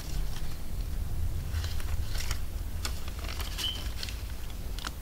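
Faint rustling and light clicks of paper banknotes being handled and tucked into a clear plastic zipper pouch in a ring binder, over a steady low hum.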